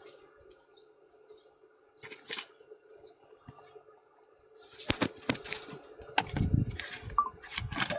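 Fishing net and gear being handled by the car: a sharp click about two seconds in, then from about five seconds a busy run of rustling, clicks and a few dull knocks.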